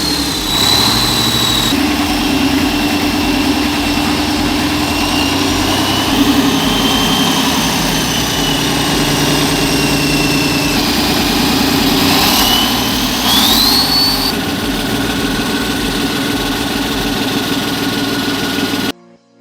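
Heavy machinery's diesel engine running steadily, with high hydraulic-style whines that glide in pitch and one rising whine partway through. It cuts off abruptly near the end.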